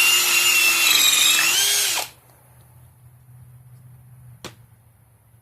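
Cordless brushless hammer drill running with a steady high motor whine, its pitch wavering slightly, that cuts off abruptly about two seconds in. One sharp click follows near the end.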